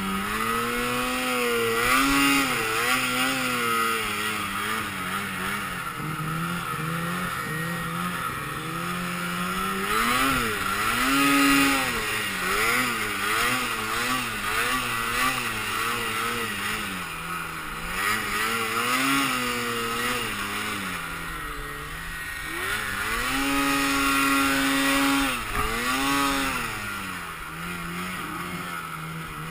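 Snowmobile engine running under changing throttle, its pitch rising and falling again and again as it revs up and eases off, with the longest high-revving stretch near the end.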